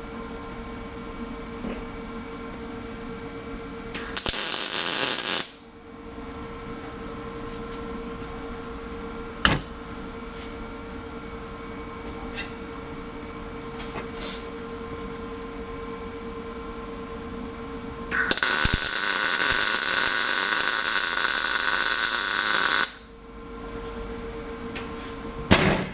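Lincoln Power MIG 210 MP welder's arc crackling as steel is MIG welded: a short burst about four seconds in and a longer one of about four and a half seconds near the end, tacking a reinforcing plate over a cracked steering bracket. A steady hum runs between the welds, with a single click about nine seconds in.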